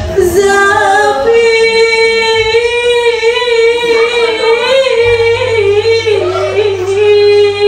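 A woman singing one long held note with vibrato, the pitch wavering and dipping briefly about six seconds in.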